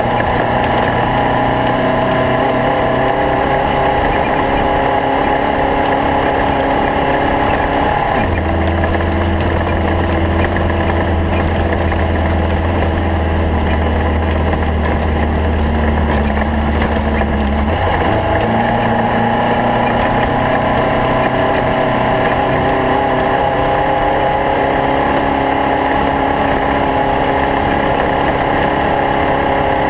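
Stock Volkswagen Beetle race car's engine running hard as a steady drone. About eight seconds in, the note drops lower and heavier for roughly ten seconds, then rises back to its earlier pitch.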